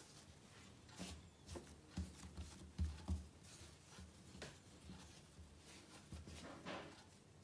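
Hands rolling and pressing soft bread dough on a countertop to shape a bun: faint, scattered soft thumps with light brushing rustles.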